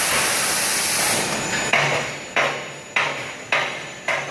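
Die casting machine cell at work: a steady hiss cuts off about a second in, then five sharp knocks follow at an even pace, a little over half a second apart, each ringing briefly before dying away.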